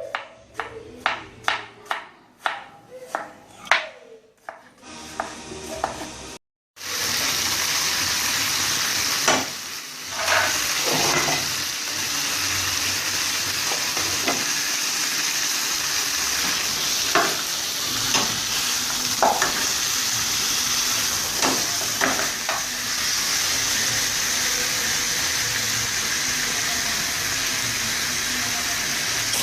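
Food frying in oil in a pan, a steady sizzle broken by occasional clicks and scrapes of a utensil stirring. The first few seconds hold music with a plucked, regular beat that cuts off suddenly.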